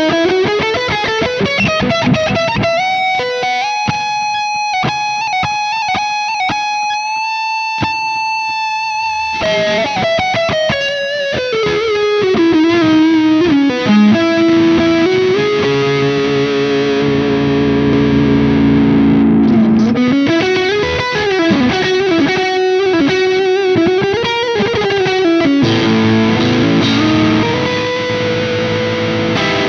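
Ibanez Universe UV7P seven-string electric guitar played through distortion: a lead line of quick runs and held, sustaining notes, with several string bends in the second half.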